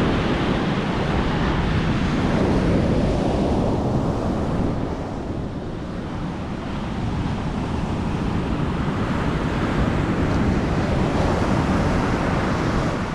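Surf breaking and washing up a sandy beach, with wind buffeting the microphone. The wash swells and eases, dipping about midway and rising again near the end.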